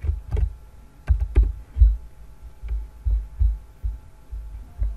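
Computer keyboard keystrokes and clicks, heard as an irregular run of dull low knocks with light clicking on top, while a password is typed and the login submitted.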